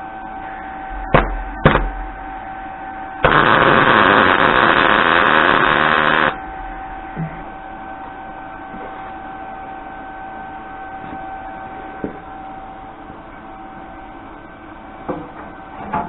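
Electric arc welder laying a tack weld: a loud, even hiss for about three seconds, starting and stopping abruptly, preceded by two sharp clicks, over a constant electrical hum.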